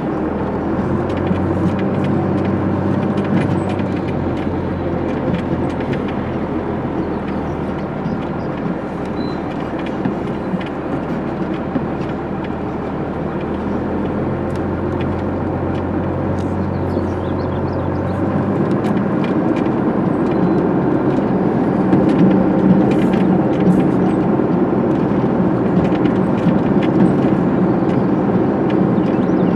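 Caterpillar D9 bulldozer's diesel engine running steadily while the dozer travels, heard from the operator's seat, with faint scattered clicks and rattles. Its low tone shifts a little over halfway through and the engine grows somewhat louder.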